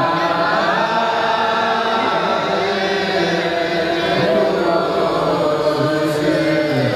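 Many voices chanting together in unison-like religious song, an Ethiopian Orthodox hymn, held without a break.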